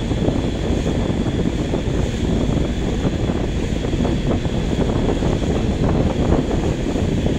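Steady low rumble of wind buffeting the microphone, with water noise mixed in.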